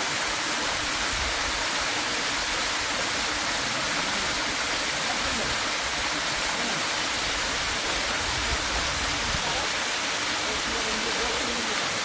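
Waterfall cascading down a rock face into a plunge pool: a steady, even rush of falling and splashing water.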